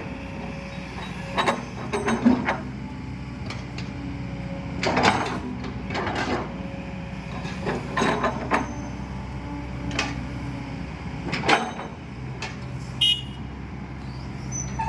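Kobelco 10-ton excavator's diesel engine running steadily, with repeated sharp metallic clanks about every one to two seconds.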